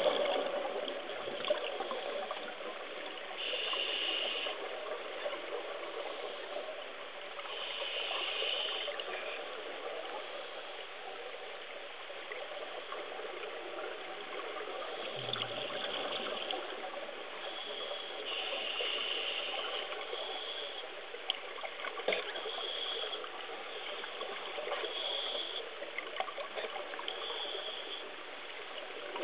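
Steady water noise picked up by a camera submerged in the water. A higher hiss swells for a second or so every few seconds, and there are a few faint low bumps.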